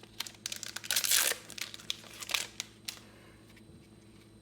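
Foil booster-pack wrapper crinkling and being torn open: a quick flurry of rustles and crackles, loudest about a second in, dying away after about three seconds.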